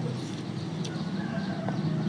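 A person chewing food close to the microphone, with one sharp wet mouth click about a second in, over a steady low rumble.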